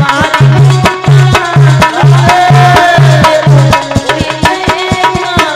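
Bhajan music with fast tabla-style hand drumming, a low bass note pulsing about twice a second, and a melody line above.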